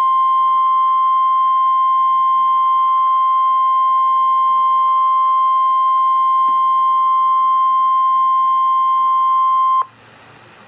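NOAA Weather Radio warning alarm tone: a single steady high tone held for about ten seconds, then cut off abruptly near the end. It signals that a tornado warning broadcast follows.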